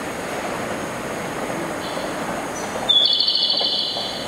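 Electric train rolling in on a curve with a steady rumble; about three seconds in its wheels start squealing on the rails with a loud, high, steady tone.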